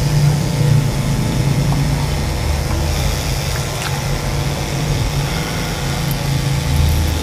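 An engine running steadily, a constant low hum, with a faint click about four seconds in.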